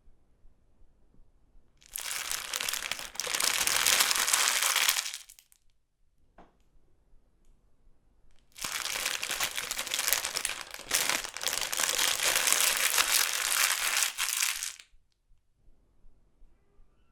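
A chip bag being crumpled by hand, crinkling in two long bouts: the first lasts about three seconds, the second about six. There is a faint single crackle between them.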